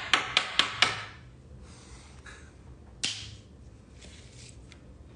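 Sharp clicks and taps from trading cards being handled: about five in quick succession in the first second, then a single one about three seconds in.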